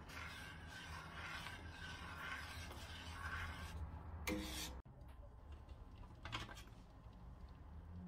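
A metal spoon stirring thick tomato and pepper sauce in a stainless steel pot, with soft scraping and rubbing against the pot, cutting off abruptly about five seconds in. A low steady hum runs underneath.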